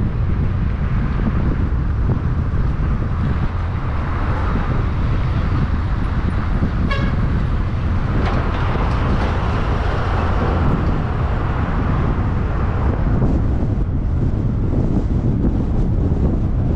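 Steady wind and road rumble on the microphone of a vehicle driving through city traffic, with a short car horn toot about seven seconds in.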